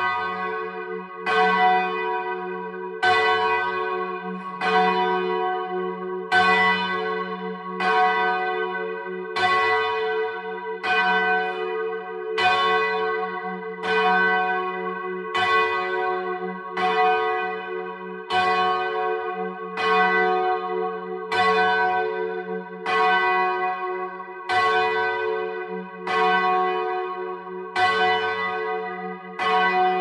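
The single bell of St Bride's, a 15 cwt tenor in F#, swung full circle on its wheel and striking once about every 1.6 seconds. It is heard close up in the belfry, each stroke ringing on into the next over a continuous low hum.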